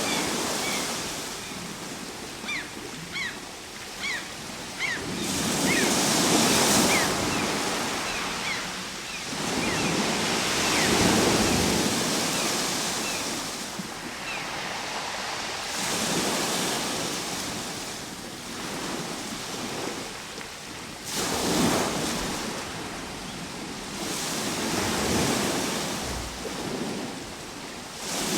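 Ocean surf: waves breaking and washing back, swelling and fading about every five seconds. A run of short high chirps sounds over the first seven seconds or so.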